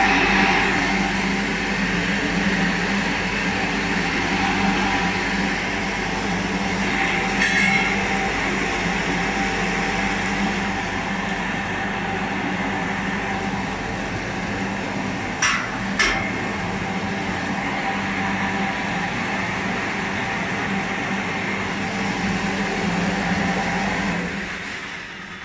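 The electric gear motor and paddle agitator of a 2000 L stainless mixing tank run steadily, stirring liquid with a loud, even hum. Two sharp clicks come a little past halfway. Near the end the hum dies away as the mixer is switched off at the control panel.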